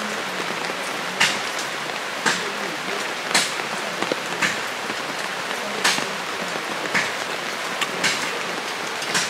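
Steady rain, an even hiss with sharp drip-like ticks about once a second.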